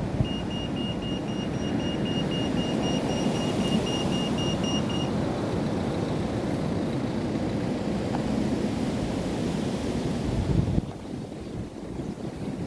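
Strong wind buffeting the microphone in a heavy, rumbling rush. A quick, even series of high beeps sounds over it for the first five seconds or so. The rush drops off suddenly near the end.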